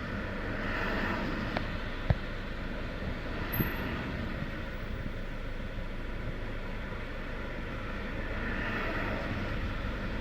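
Jaguar 2.0 diesel engine idling rough, the rough idle that comes with its white exhaust smoke. Two brief knocks in the first few seconds.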